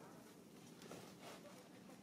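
Near silence: faint outdoor background with a soft rustle about a second in and a faint short squeak from the baby long-tailed macaque near the end.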